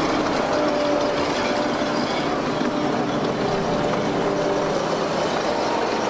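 Grimme Varitron self-propelled potato harvester running steadily as it lifts potatoes, its intake webs carrying soil and tubers through the machine over the engine's hum.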